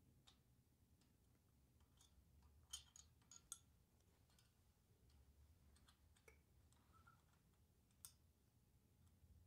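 Near silence, broken by a few faint metallic clicks and ticks from hand tools on a motorcycle valve tappet adjuster: a wrench, a hex key and a feeler gauge setting the valve clearance. There is a small cluster of clicks about three seconds in and a single sharper click near the end.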